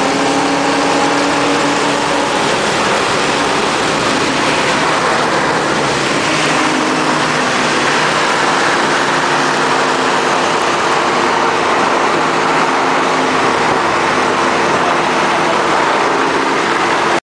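V8 muscle-car exhaust drone at freeway cruising speed, under steady road and wind noise. The engine note rises a little in the first couple of seconds, then holds steady.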